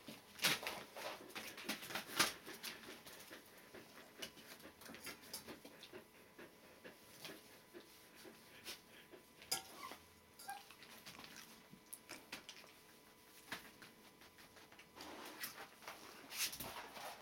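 Three-week-old Border Collie puppies scrabbling about on a fleece mat and newspaper: faint, scattered pattering and rustling of small paws, busiest at the start and near the end, with a faint squeak or two about ten seconds in.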